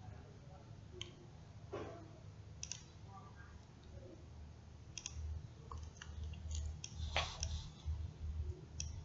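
Computer mouse clicks, faint and irregular, single clicks with a louder one about seven seconds in, over a low hum.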